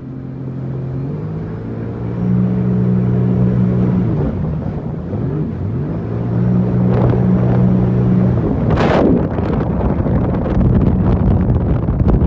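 Sea-Doo GTX 300 personal watercraft engine running, revved up twice, each time holding for a couple of seconds before settling back, with two short hisses near the end.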